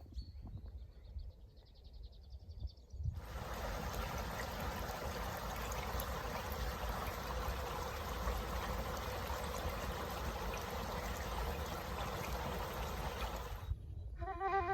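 Stream water running: a steady, even rush that starts suddenly about three seconds in and cuts off shortly before the end. Before it, a faint high pulsing trill.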